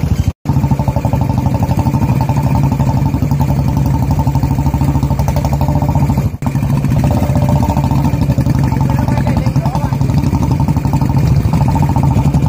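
Motorcycle engines running as the bikes ride slowly over a rough, rocky dirt trail, a steady low, fast-pulsing engine sound. It drops out briefly twice, about half a second in and again about six seconds in.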